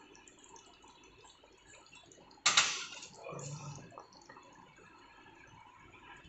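Faint bubbling of a thick pea-and-paneer curry gravy simmering in a pan. About two and a half seconds in, a sudden loud rushing noise lasting about half a second, followed by a softer, lower noise for about a second.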